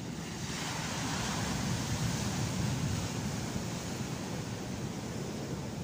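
Sea surf breaking and washing up the shore onto a slipway: a steady rush of water that swells about half a second in.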